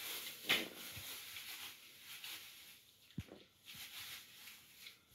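Small Chihuahua chewing a piece of dried beef tripe, smacking noisily in irregular bites, loudest about half a second in.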